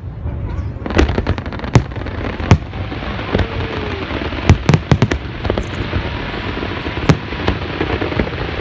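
Fireworks display going off: a steady din of many fireworks with sharp bangs at irregular intervals, several in quick succession around the middle.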